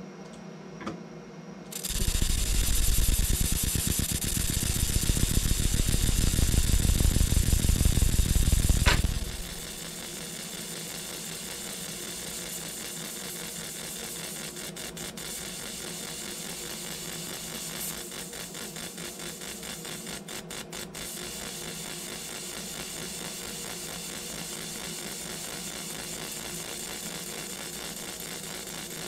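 Laser engraver marking a logo into a silver coin. About two seconds in, a loud, rapid buzzing rattle starts and lasts about seven seconds, then stops sharply. A quieter steady buzz carries on after it.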